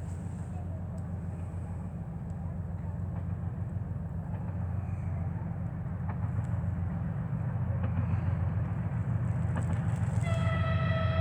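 A 2TE10UT diesel locomotive's 10D100 two-stroke diesel engines rumble steadily, getting louder as the light engine approaches. About ten seconds in, the locomotive sounds one steady high note on its horn.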